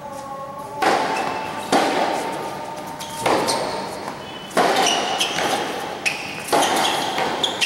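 A tennis rally: about six sharp pops of ball on racquet strings and court, spaced one to two seconds apart, each echoing under the covered court's roof.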